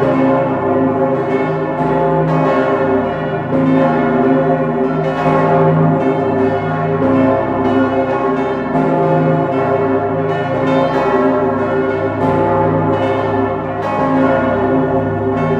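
Full peal of St. Stephen's Cathedral's twelve bells, tuned from c° to c''', heard close up from inside the bell chamber: eleven bronze bells cast by Pfundner in 1960 and the Pummerin are swinging and striking at once, their strokes overlapping in no fixed order over a steady, loud wash of ringing tones.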